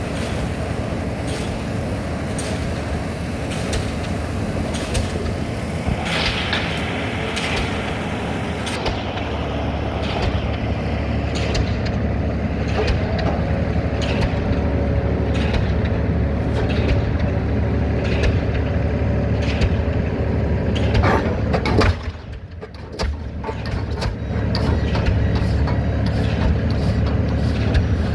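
DD65 diesel pile hammer striking a concrete pile in a steady rhythm, about one blow every second and a bit, over the continuous drone of the piling rig's engine. The sound drops away briefly about three-quarters of the way through, then the blows resume.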